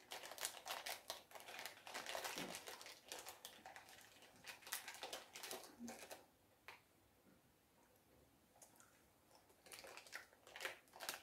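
Faint crinkling and crackling of a small plastic candy wrapper being handled and picked open, in scattered crackles that stop for about three seconds past the middle and start again near the end.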